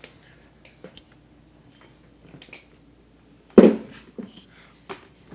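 Handling noises of a wire being fished through a refrigerator door: scattered light clicks and taps, with one loud knock about three and a half seconds in.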